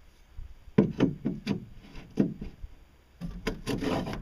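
Knocks and clatter of a stainless steel pipe being handled: about six separate knocks in the first half, then a denser clattering scrape near the end as the pipe is worked into a socket on the boat hull.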